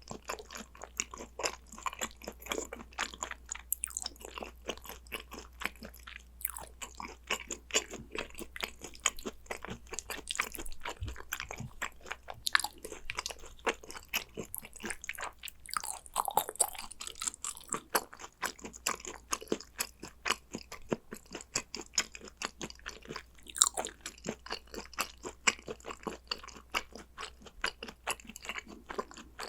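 Chewing and crunching of spicy gochujang-seasoned raw Korean beef (yukhoe): a steady run of small, sharp mouth clicks.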